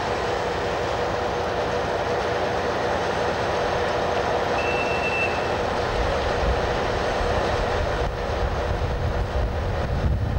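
Train running slowly through a station, heard from aboard: a steady rumble with a low, even hum, and one brief high squeal about halfway. Wind buffets the microphone near the end.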